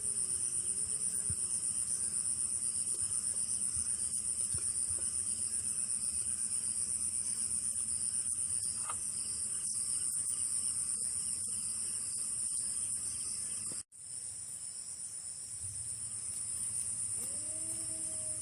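Crickets chirring steadily, high-pitched and finely pulsing. Over them, a long wavering cry-like call that rises and falls in pitch dies away about a second in, and another begins near the end. The sound cuts out for a moment about two-thirds of the way through.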